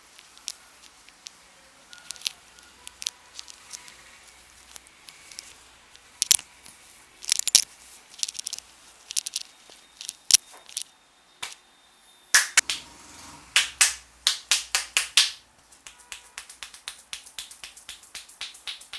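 Indian head massage percussion: sharp hand slaps, claps and finger snaps, scattered at first, then a quick run of strikes, about four a second, from about twelve to fifteen seconds in.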